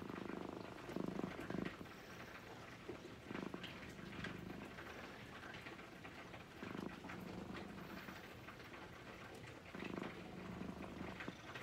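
Orange-and-white cat purring close to the microphone, the low rumble swelling every few seconds with its breathing.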